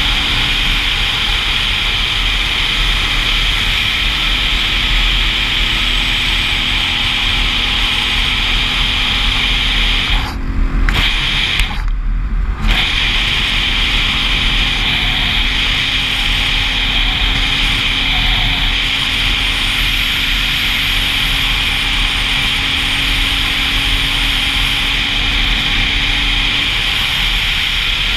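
Single-cylinder dual sport motorcycle running at a steady cruise, with heavy wind rush on the microphone over the engine. The wind noise briefly drops away twice a little past the middle.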